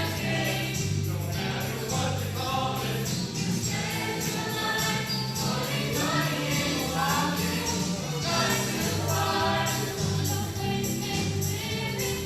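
High school show choir singing in chorus over instrumental backing with a steady beat.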